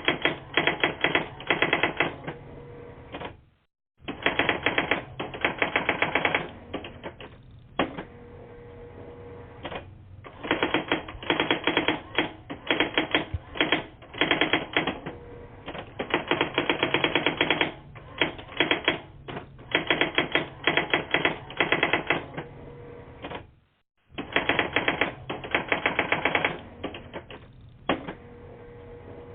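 Typewriter keys clattering in fast runs of a second or two with short pauses between, heard through a phone line's narrow sound. The line drops out to silence twice, about four seconds in and near the end.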